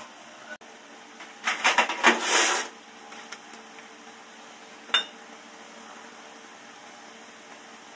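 Metal parts clinking and rattling on a workbench in a quick cluster of knocks, then a single sharp metal click a few seconds later.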